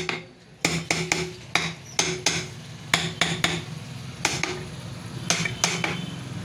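Small hammer tapping repeatedly on the metal casing of a 1 HP monoblock water pump, to seat a fitted part tightly. About a dozen sharp, irregular metallic taps, each with a short ringing tone.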